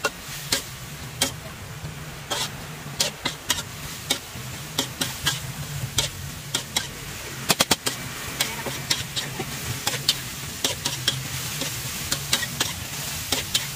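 Metal spatula scraping and clanking against a steel wok as noodles and vegetables are stir-fried, with sizzling underneath. The strikes come irregularly, a few a second, with a quick run of loud clanks about halfway through, over a low steady hum.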